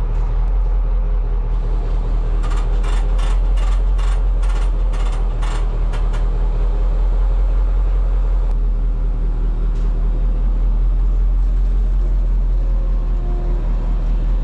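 An engine running steadily at idle. From about two seconds in to about six seconds in, a quick run of sharp ticks comes about three a second.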